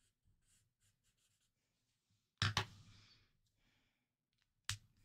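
Alcohol marker nib rubbing on sketchbook paper in quick, soft, repeated strokes. About two and a half seconds in there is a louder sharp click and clatter, and a short click near the end.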